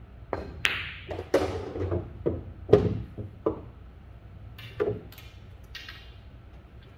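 A pool shot: the cue tip clicks on the cue ball, then a sharp ball-on-ball click as it strikes the object ball. A run of knocks follows as the balls drop and roll against the cushions and the pocket, and a ball is set down on the cloth a little before the end.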